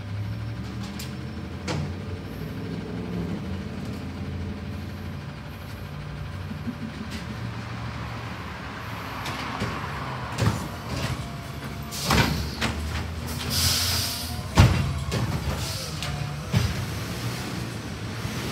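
Diesel engine of an Autocar Xpeditor garbage truck with a Heil Freedom automated side-loader body, running steadily as it works along the street collecting carts. From a little past halfway come several sharp clanks and bangs, with a brief hiss of air between them; the loudest bang falls about three-quarters of the way through.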